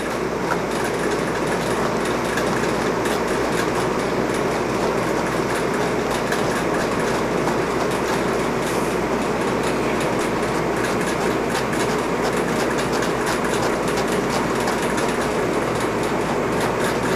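Small slicker brush raking through an English Angora rabbit's long wool on its cheek, a steady scratchy rustle made of many quick fine strokes as the snarled, webbed wool is brushed out.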